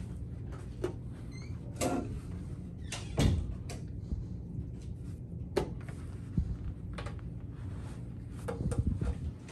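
Chess pieces being set down and moved on a wooden board, with presses of a chess clock: a handful of sharp clicks and knocks, the loudest about three seconds in, over a steady low room hum.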